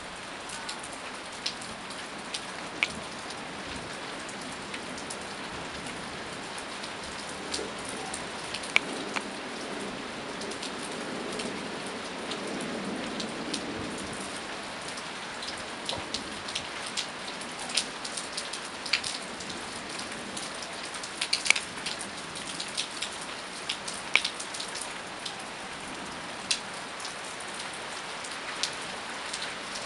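Steady rain falling in a thunderstorm, with many sharp, irregular drop hits close by. A low rumble swells and fades in the middle.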